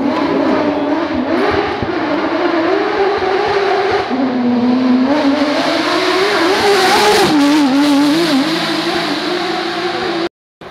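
Porsche 911 GT3 rally car's flat-six engine at full throttle. Its pitch rises and falls with the gear changes and lifts, and it is loudest as the car passes close, about seven seconds in. The sound cuts off suddenly just before the end.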